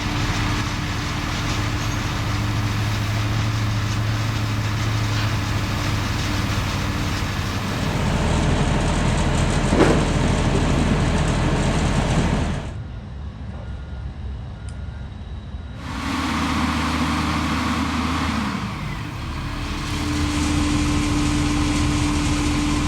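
Delivery trucks' engines running at a steady idle, with a low hum. The sound changes abruptly several times as short clips are cut together.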